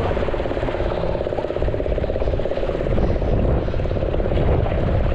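A loud, steady mechanical drone with a fast pulse over a low rumble, like an engine running nearby.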